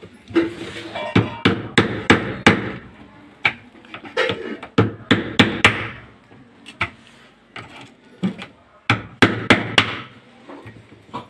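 Screwdriver being knocked and worked at a screw in a twin-tub washing machine's plastic top panel: a run of irregular sharp knocks and taps, coming in clusters.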